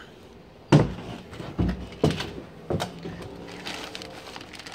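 Packed parts being handled inside an open sheet-metal welder compartment: a sharp knock about a second in, a few lighter knocks, then the crinkle of a plastic-wrapped muffler being pulled out near the end.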